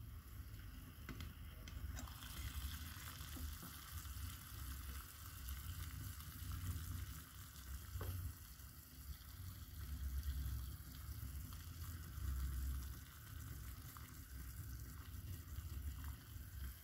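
Water hissing and sizzling as it heats toward the boil in a stainless steel mug over a soda-can alcohol stove, with a low uneven rumble underneath.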